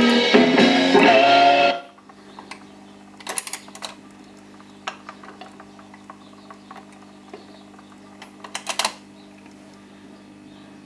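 Guitar music playing through a Dansette Major Deluxe record player cuts off suddenly about two seconds in. A steady low hum from the player's amplifier remains, with two short bursts of mechanical clicking from the deck, about a second later and again near the end.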